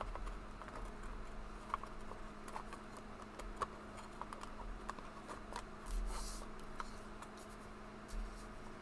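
Glossy oracle cards being handled on a cloth-covered table: scattered light ticks and taps, with a short sliding swish about six seconds in and another near the end. A faint steady hum runs underneath.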